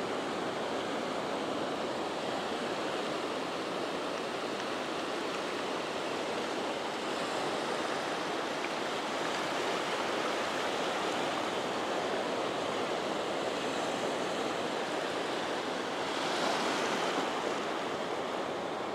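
Shallow ocean surf washing in over sand: a steady rush of small breaking waves, swelling briefly near the end.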